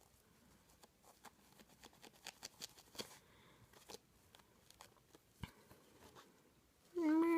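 Sponge brush dabbing tempera paint onto a foam donut shape: faint, irregular small taps and scratches. A short voiced sound from the painter near the end.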